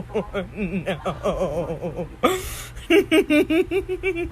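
A person laughing in quick, repeated pulses, with a short breathy gasp a little past halfway.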